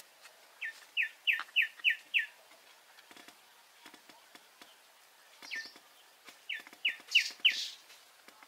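A bird calling in two quick runs of short, falling notes, five or six notes to a run, with a single note between them; faint clicks and taps underneath.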